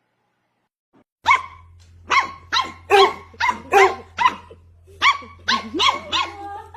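A dog barking over and over, about two sharp barks a second, starting just over a second in.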